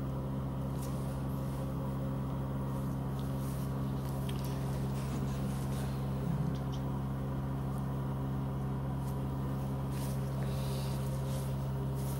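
Steady low machine hum, unchanging throughout, with a few faint soft clicks.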